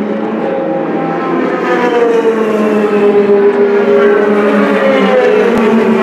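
IndyCar's 2.2-litre twin-turbo V6 at racing speed, its note getting louder and sliding down in pitch as the car passes about two seconds in, then holding steady.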